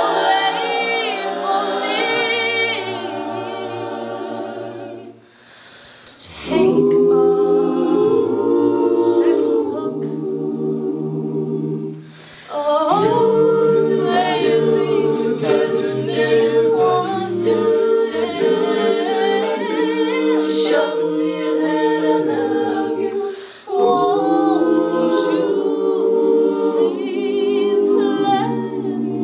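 Mixed-voice a cappella group singing a pop arrangement: sustained vocal chords over a sung bass line, with no instruments. The whole group cuts off briefly three times, longest about five seconds in and shorter near twelve and twenty-three seconds, each time coming back in together.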